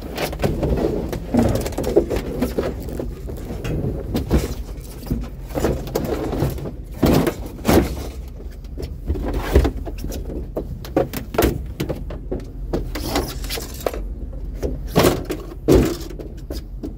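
Irregular knocks, clunks and rattles of scrap being handled, over the steady low hum of an idling vehicle engine.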